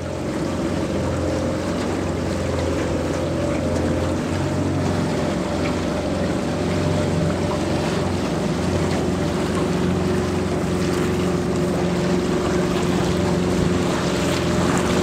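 Small river boat's motor running steadily at cruising speed, an even hum, with water rushing past the hull.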